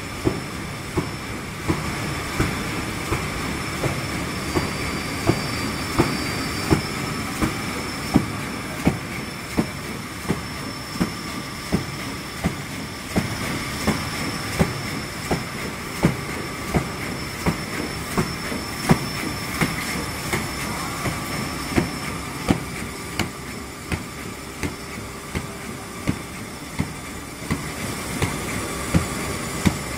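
Paper honeycomb core production machinery running: a steady mechanical hum with a couple of constant whining tones, and a sharp regular knock about every 0.7 seconds from the machine's cycle.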